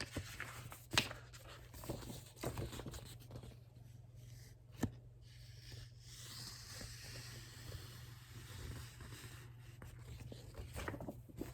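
Faint rustling and scraping of a picture book's pages being handled, with a couple of soft taps, over a low steady hum.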